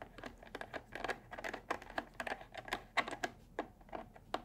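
Irregular plastic clicking and ticking, several times a second, as the visor pivot plate on an HJC V90 motorcycle helmet is turned by hand to tighten its screw.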